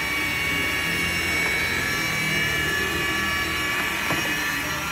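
Steady machine whine with several held high tones over a low rumble, and a single faint click about four seconds in.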